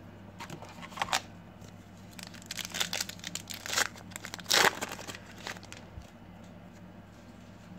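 A trading-card pack's plastic wrapper crinkling as it is handled and torn open, in a run of sharp crackly rustles, the loudest about four and a half seconds in.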